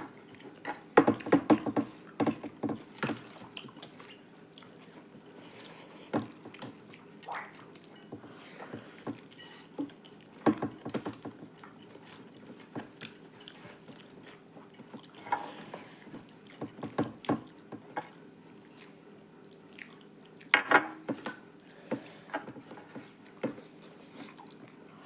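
People eating a meal: irregular chewing and mouth noises mixed with small clinks of dishes and utensils.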